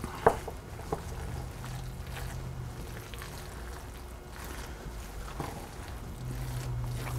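Wooden spoon stirring thick, creamy risotto in a stainless steel saucepan, with two sharp knocks of the spoon against the pan within the first second. A low steady hum runs underneath.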